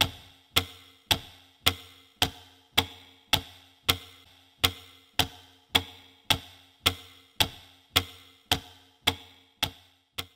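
Clock ticking sound effect: sharp, evenly spaced ticks, a little under two a second.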